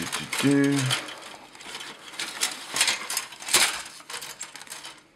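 Plastic model-kit parts trees and parts clicking and rattling against each other and the cardboard box as they are handled, with a string of sharp clicks through the middle. A brief hum of voice comes about half a second in.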